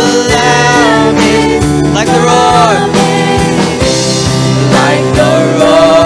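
Worship band music: a sung vocal line with gliding notes over a steady band accompaniment.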